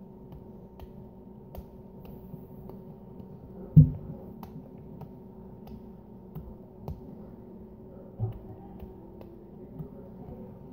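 Hands slapping the cheeks over and over: a run of light, quick smacks, with two harder slaps about four seconds in and again about eight seconds in.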